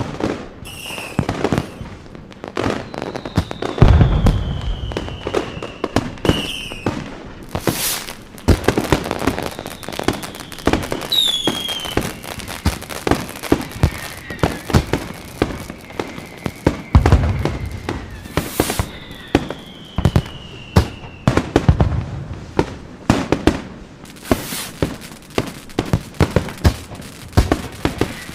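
Fireworks going off: a steady crackle of rapid pops and bangs, with deep booms about four seconds in and again around seventeen seconds, and several long falling whistles.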